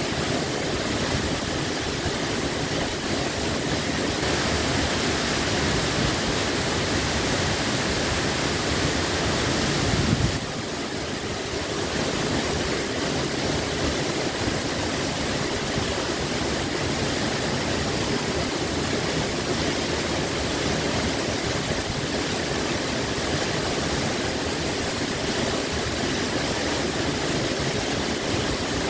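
Huibang Falls, a tall waterfall, pouring down a rock face into its plunge pool: a steady rush of falling water. There is a short low thump about ten seconds in.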